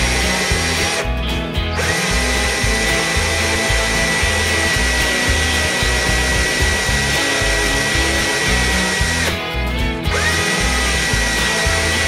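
Electric drill running with a steady high whine, stopping twice for under a second and spinning back up each time, over background music with a steady beat.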